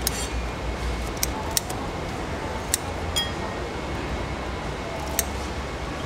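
Kitchen shears snipping through a raw mantis shrimp's shell: about six sharp snips at uneven intervals, over a steady low hum.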